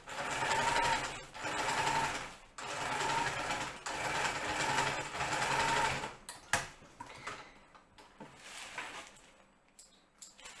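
Home sewing machine stitching a seam through kite fabric in several runs of about a second each with brief pauses, stopping about six seconds in. Afterwards the fabric rustles as it is handled, with a sharp click.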